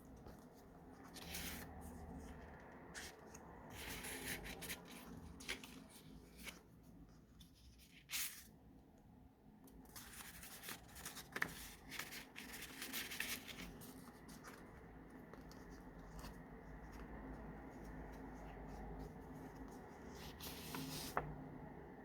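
Paper pages of a handmade junk journal being turned and handled, giving short papery rustles and soft taps every few seconds.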